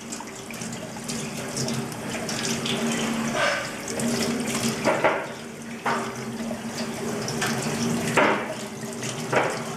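Tap water running in a thin stream into a stainless steel sink and over a gutted whole salmon as it is rinsed by hand, with several louder splashes as the fish is turned. The cavity is being rinsed to wash out the last traces of blood.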